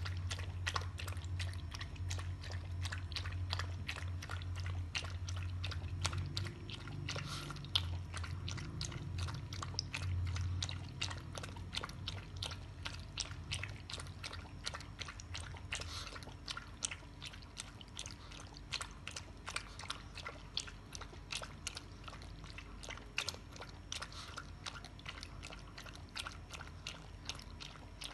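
A Shih Tzu lapping milk from a shallow plate: a rapid, unbroken run of small wet clicks and slurps from its tongue.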